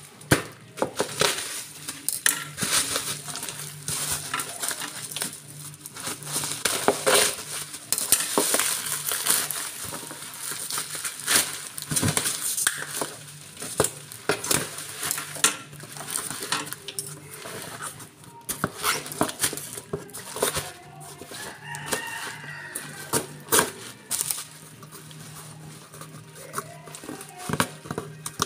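Plastic bubble wrap crinkling and crackling as it is pulled and torn off a cardboard parcel box, with irregular handling knocks against the box. A faint steady low hum runs underneath.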